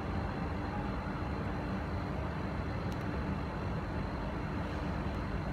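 Steady low rumbling background noise with a faint hum, like machinery or ventilation running, and a faint click about three seconds in.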